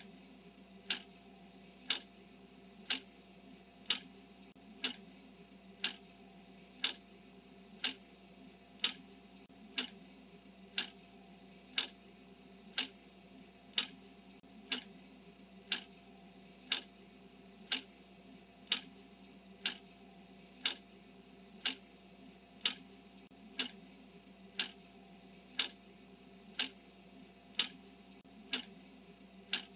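Clock ticking steadily, one tick each second in step with the countdown, over a faint steady hum.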